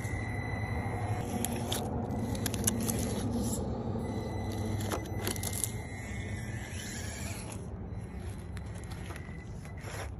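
Traxxas TRX4M 1/18-scale RC crawler driving through grass and dry leaves: its small brushed electric motor gives a thin whine that comes and goes and rises in pitch around the middle, over the crackle and scrape of tyres on leaves and stems. A low steady hum runs underneath.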